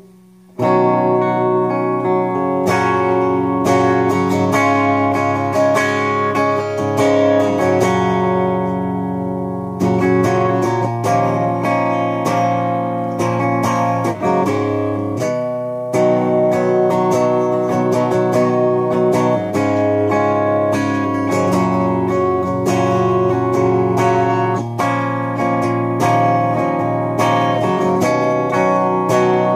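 Electric guitar played through a Peavey Triple XXX II tube amp head and speaker cabinet on its clean channel: strummed, ringing chords that start about half a second in, with a brief break about fifteen seconds in.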